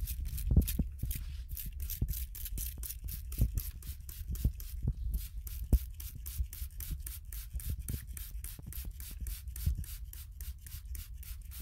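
Trigger spray bottle squirting isopropyl alcohol over freshly poured soap in rapid, even pumps, about four short hisses a second, over a low rumble.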